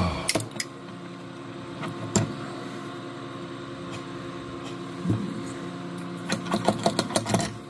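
Toothbrush pressed repeatedly onto the pump plate of a pump-top alcohol dispenser bottle, a quick run of clicks and taps near the end, with a few single taps before it. A steady hum with several tones runs underneath.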